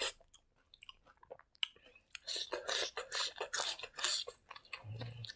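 Close-up chewing and biting of food: faint wet clicks of eating rice by hand, then from about two seconds in a run of crunchy bites as a bunch of fresh green herbs is bitten off and chewed. A short low hum near the end.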